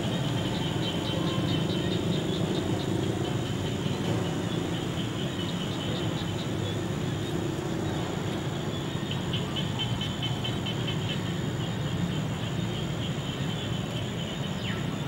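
Outdoor ambience: a steady low rumble, with several stretches of rapid, high-pitched chirping pulses, a few seconds in, around the middle and past two-thirds of the way.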